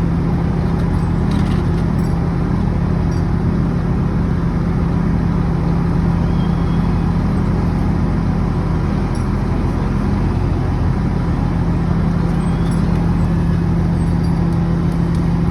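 A large engine running steadily at one constant speed, with a deep, even hum and a few faint ticks over it.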